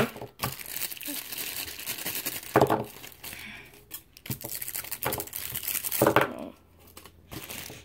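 Clear plastic packaging bags crinkling and rustling as they are handled and pulled off accessories, in irregular crackles that ease off near the end.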